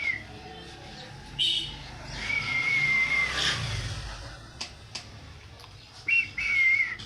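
Pet parrot whistling: a short high note, then a held, nearly level whistle of about a second, and two short whistles near the end.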